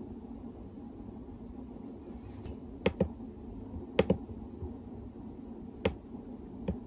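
Laptop keyboard keys tapped a few times, sparse sharp clicks, two of them in quick pairs, over a steady low room hum.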